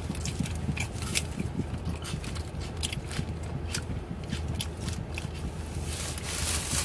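Close-up chewing of a mouthful of sandwich, with irregular sharp mouth clicks and crinkling of the paper wrapper, over a steady low hum.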